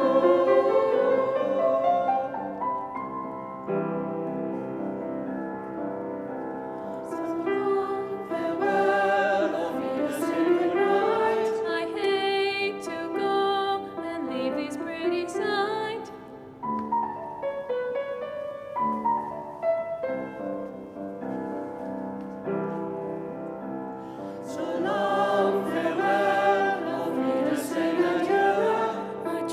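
Cathedral choristers singing a closing song with piano accompaniment, with a short pause between phrases a little past halfway.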